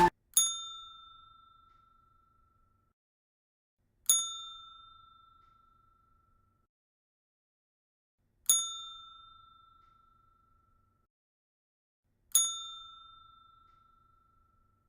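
Hotel desk bell (counter service bell) struck four times, a few seconds apart, each ding ringing out and fading over about two seconds.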